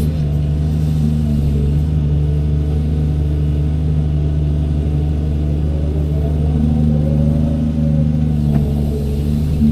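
Doosan 210W wheeled excavator's diesel engine running steadily. About six to eight seconds in, a whine rises and then falls over the engine note.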